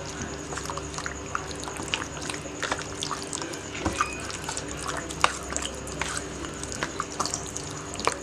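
Cubed beef being mixed by hand into a thick yogurt marinade in a steel pan: wet squelches and irregular small clicks, over a faint steady hum.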